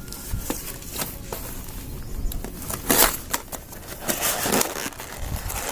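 Tough product packaging being pulled and torn open by hand: crinkling and clicks, with louder rustling rips about three seconds in and again about four seconds in.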